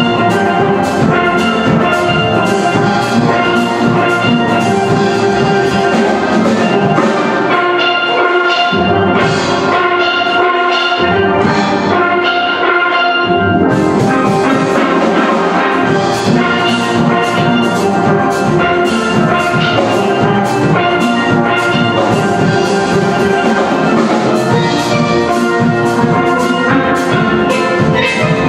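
Steel band of steel pans with drum kit and percussion playing a calypso. From about seven seconds in, the cymbals and deep bass thin out for several seconds, then the full band comes back in about halfway through.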